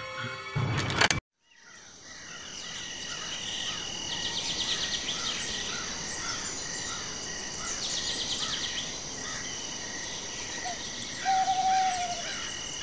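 The scary music ends with a loud burst that cuts off about a second in. A night ambience of crickets and insects then fades in: steady high chirring with repeated chirps, two rapid trills, and a short louder bird call near the end.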